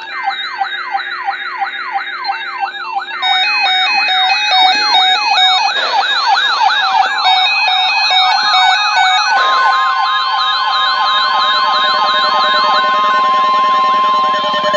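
Several weather alert radios sounding their alarms together, set off by a severe thunderstorm watch alert: overlapping fast wailing siren sweeps and stepped beeping tones. About two-thirds of the way through, the steady 1050 Hz NOAA Weather Radio alert tone joins in, stopping near the end.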